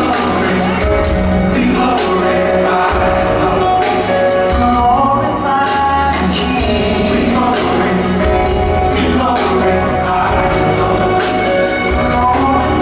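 Live gospel music: a choir and a male lead singer with a band of drums, bass and keyboards, played loud through a concert sound system with a steady beat.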